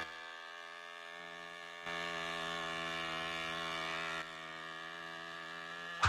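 Steady electric buzzing hum of a small motor, the cartoon sound of remote-controlled flying toys. It gets louder about two seconds in and drops back a little after four seconds.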